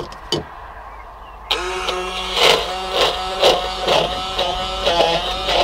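Cordless stick blender switched on about a second and a half in, its motor whirring steadily as the blade chops wild garlic, pine nuts and olive oil into pesto in a small plastic beaker. The sound swells about twice a second as the blade bites into the mixture. A few light clicks come before it starts.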